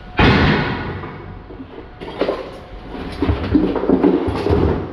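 Heavy cast-iron brake rotors clanking as they are handled in scrap. A loud metal clang comes about a quarter second in, then further knocks and scraping in the second half.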